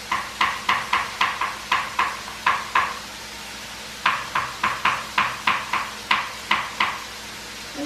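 Knife chopping garlic on a cutting board: quick knocks of the blade on the board, about four a second, in two runs of roughly three seconds each with a brief pause between.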